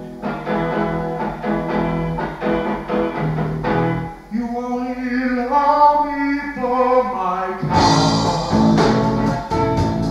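Late-1970s rock song: a plucked guitar intro, then a sliding melody line, and the full band with drums comes in near the end.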